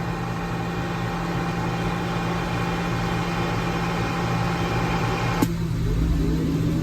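CB radio hiss and hum from a keyed but silent transmission. It cuts off with a sharp click about five and a half seconds in, and faint gliding whistle tones follow.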